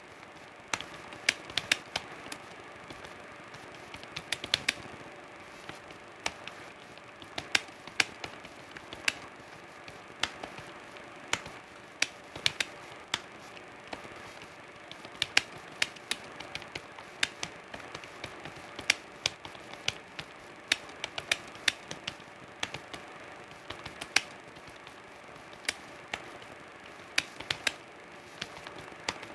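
Computer keyboard being typed on: irregular key clicks, a few a second, in quick runs with short pauses between them.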